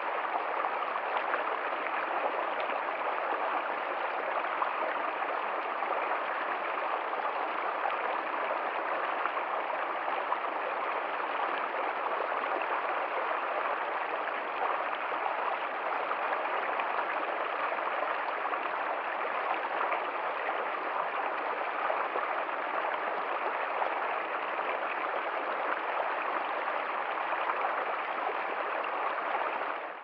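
Small rocky stream running over boulders and splashing down little cascades, a steady rush of water.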